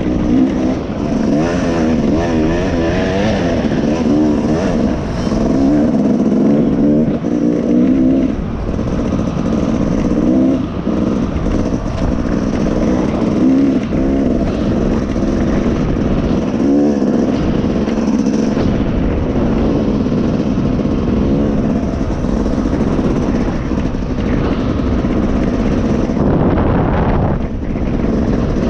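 Dirt bike engine running as it is ridden, its pitch rising and falling again and again as the throttle opens and closes.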